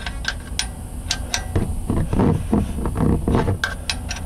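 Box-end wrench clicking and clinking against a car's oil pan drain bolt as the bolt is worked loose: a run of sharp, irregular metal clicks.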